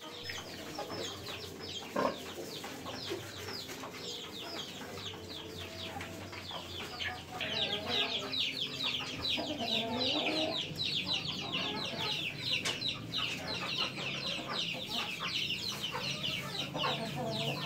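Many chicks peeping: a dense run of short, high, falling chirps that grows louder about seven seconds in. There is a single knock about two seconds in.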